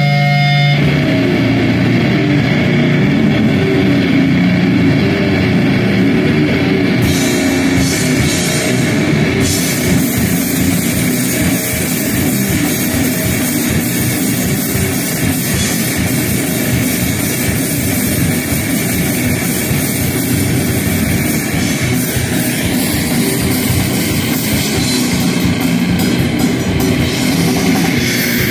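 Live heavy metal band playing loudly: a held electric guitar chord gives way about a second in to fast, dense drumming under distorted guitar, with cymbals washing in further on.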